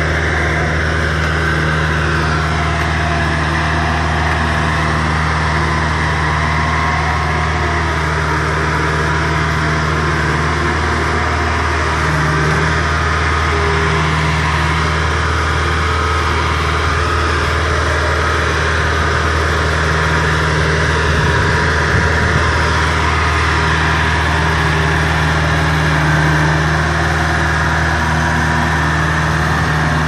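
Kubota DC-70 combine harvester's diesel engine running steadily, with a continuous whir of machinery as the tracked machine drives along.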